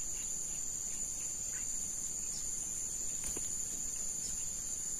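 A steady, high-pitched chorus of insects, a continuous even drone with no pauses.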